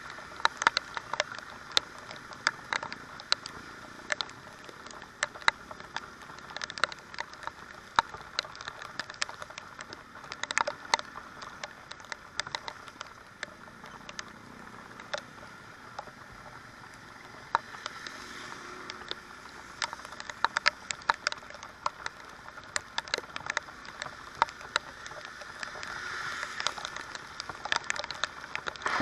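Heavy rain striking the motorcycle-mounted camera: many sharp, irregular taps of raindrops hitting the housing over a steady hiss of rain and wet road.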